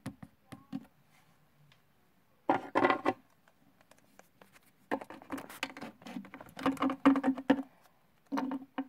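Handling noises of small plastic toy figurines being moved about on a wooden shelf: scratching and tapping in three short spells, the longest in the middle.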